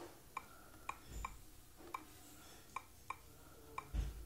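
Faint key-press clicks from a Nexus 7 tablet's on-screen keyboard as a word is typed, about seven short ticks at an uneven typing pace. There are two low bumps, one about a second in and one near the end.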